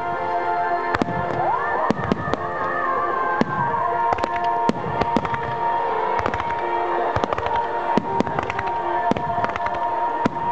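Aerial fireworks going off in quick succession: a dense run of sharp bangs and crackles, over steady held tones.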